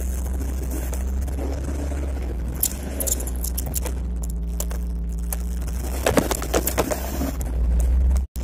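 Heavy diesel engine of earth-moving machinery running steadily, with scattered clattering and rattling, denser about six seconds in, typical of gravel and stones being handled. The sound cuts out for an instant near the end.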